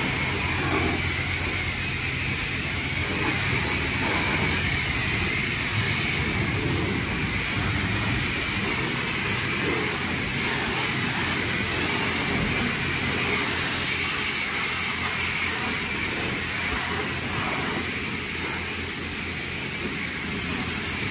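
Touchless car wash water jets spraying over the car in a steady, even hiss, with a low steady hum underneath.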